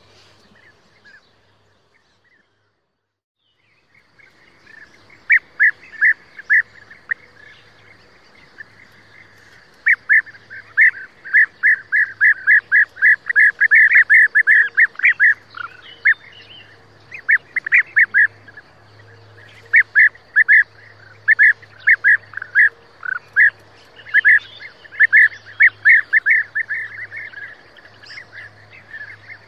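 European bee-eaters calling: short, clipped calls repeated in quick runs of several a second. They start after a brief silence a few seconds in and come thickest in the middle and again near the end.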